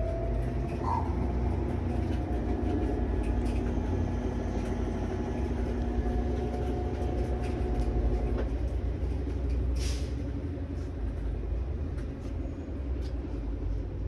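Whirlpool Xpert System top-load washer spinning its tub during the service-test spin cycle: a steady mechanical rumble with a motor whine. The whine stops about eight and a half seconds in, and a single sharp click follows about a second later. In test mode the spin runs, showing the motor and shift actuator work.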